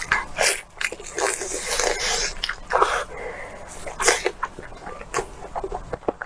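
Close-miked eating sounds: wet chewing and smacking of steamed pork intestine, a rapid run of sticky clicks with a few louder, breathy bursts.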